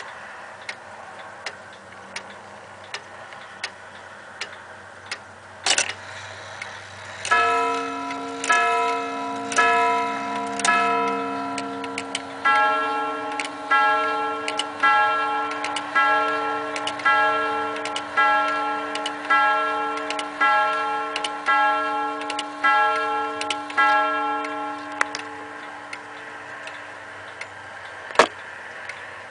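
Gustav Becker Vienna regulator ticking, then its grand sonnerie train runs after a click about six seconds in. A short group of strikes rings on one gong rod, then about a dozen strikes ring on a second rod of a different tone, about one a second: the quarters, then the hour. A sharp click of the strike-work comes near the end.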